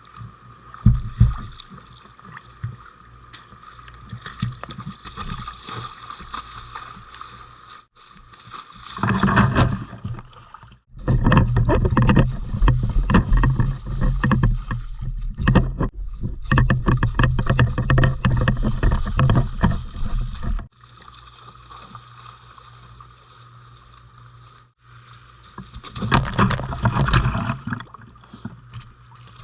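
Steady rain falling, broken by loud crackling, rubbing noise with low thumps close on the microphone: a short burst about nine seconds in, a long stretch of about ten seconds starting a couple of seconds later, and another burst near the end.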